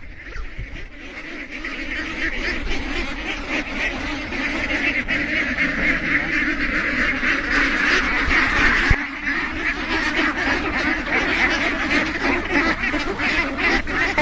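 A large flock of farm ducks quacking together in a dense, continuous chorus that builds over the first couple of seconds.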